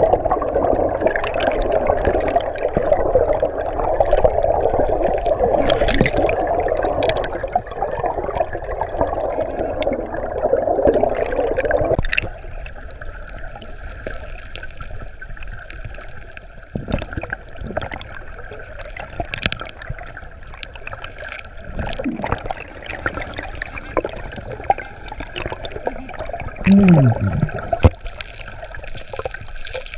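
River current heard underwater, gurgling and rushing against a submerged camera, with a few sharp knocks of stones on the riverbed. It turns abruptly quieter about twelve seconds in, and a short, loud sound that falls in pitch comes near the end.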